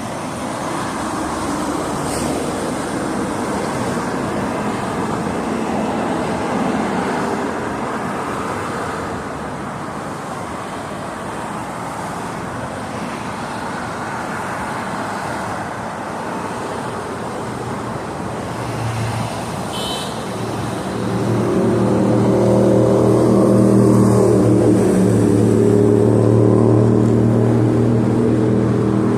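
Freeway traffic: a steady rush of tyres and engines. About two-thirds of the way through, a louder engine with a steady low hum joins in close by and becomes the loudest sound.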